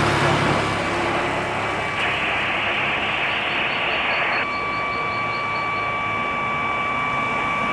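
Street traffic, with a car passing close by and a low rumble that fades after about six seconds. A steady high whine runs through it, and the noise swells for a couple of seconds in the middle.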